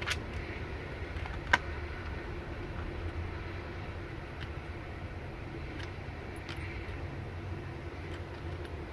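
A few light clicks and taps of small parts being handled, the sharpest about a second and a half in, over a steady low background hum.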